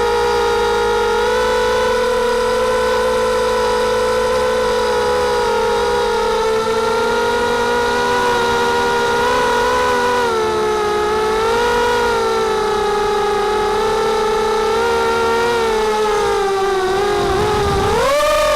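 FPV250 mini quadcopter's four brushless motors and 5x3 propellers whining in flight, the pitch wavering up and down with throttle. Near the end the pitch sags, then rises sharply as the throttle is pushed up.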